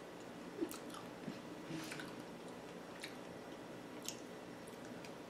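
A person chewing a chocolate-covered strawberry with her mouth closed: faint, irregular mouth clicks.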